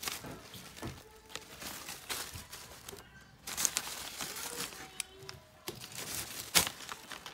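Mesh shipping bags, plastic deli cups and newspaper packing being handled, making irregular rustling and crinkling with scattered small clicks. A sharp knock comes near the end.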